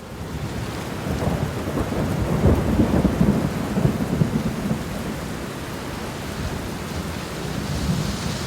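Steady rainfall with a roll of thunder rumbling low underneath, heaviest about two to four seconds in, then easing back to the even hiss of rain.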